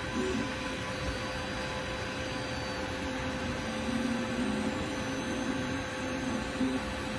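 TENLOG 3D printer running a print: its fans hiss steadily over a constant hum, while the stepper motors whine in low, shifting pitches as the print head moves.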